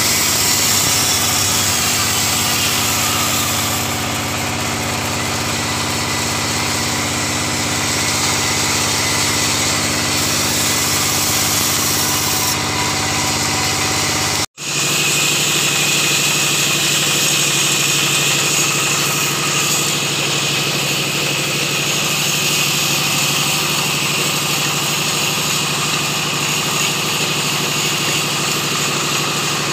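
Band sawmill running steadily, its blade sawing through timber on the carriage. The sound breaks off for an instant about halfway and goes on with a slightly different tone.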